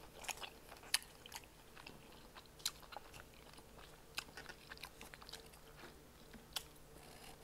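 Biting and chewing a bone-in chicken wing: faint, irregular wet mouth clicks and smacks, the sharpest about one second and just under three seconds in.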